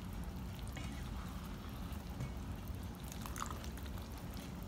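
Cornflour-and-water slurry poured from a small bowl into a pan of simmering sauce, trickling in as the sauce bubbles, to thicken it.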